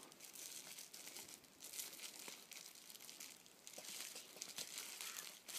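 Faint crinkling and rustling of tissue-paper packing being pulled out of a small plastic tub, in irregular short bits with a few light ticks.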